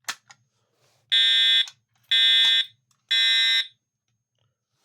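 Two short clicks, then a third-generation Edwards Integrity 757-8A-TW horn strobe, set to low output, sounding a temporal-three fire alarm pattern: three loud, harsh blasts about a second apart, then a pause before the next set.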